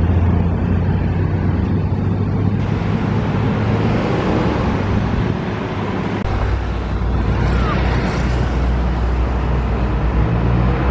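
Road traffic passing close by: a steady low engine drone, with the rush of a vehicle going by in the middle. A new low engine drone takes over about six seconds in.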